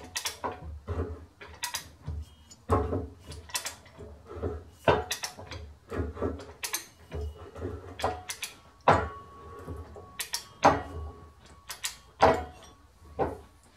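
Ratchet handle on a rack-and-pinion arbor press, converted to a broaching press, being worked stroke by stroke to push a keyway broach through the part. It gives a series of sharp ratchet clicks and metal knocks, about one or two a second, with the loudest cracks in the second half.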